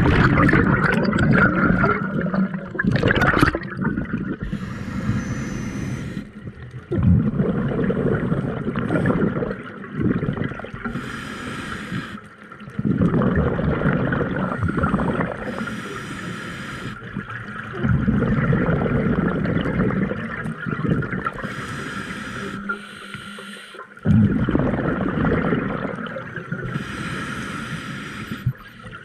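Scuba diver breathing through a regulator underwater. A short hiss of inhaled air comes about every five to six seconds, five in all, and each is followed by a long gurgling burst of exhaled bubbles.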